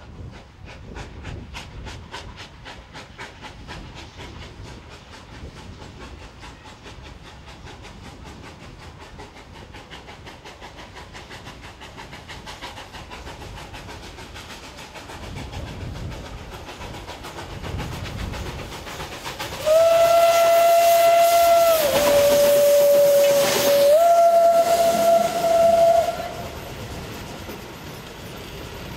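ČSD class 423.0 steam tank locomotive pulling away, its exhaust chuffing in regular beats, then sounding its steam whistle in one long blast of about six seconds, about twenty seconds in, which drops in pitch in the middle and comes back up. Near the end the carriages roll past.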